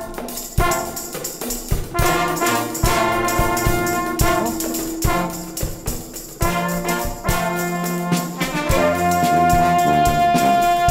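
Junior wind band playing an upbeat number: trumpets or cornets, trombone and saxophones over regular drum hits, with a long held brass note from about nine seconds in.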